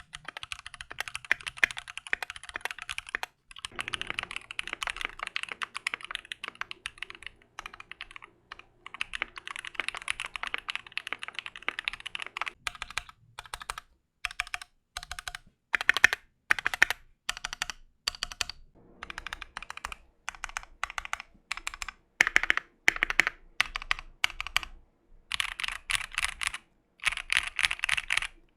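Keychron Q2 aluminium-case mechanical keyboard typed on, its switches not yet lubed or filmed. Fast runs of keystroke clacks come in bursts, with a stretch of single separate key presses through the middle.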